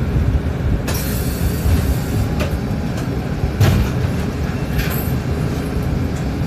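Cabin noise of a city bus under way: steady low engine and road rumble, with a rise of hiss coming in about a second in and a few short knocks or rattles near the middle.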